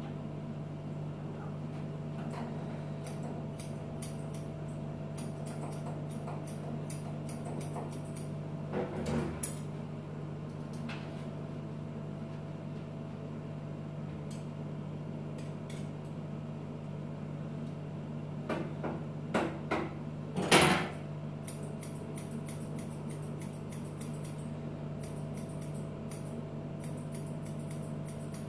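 Steady low hum in a small room, with scattered light ticks and a few clicks and clinks of metal dog-grooming tools, a comb and scissors, being handled; the loudest clatter comes about two-thirds of the way through.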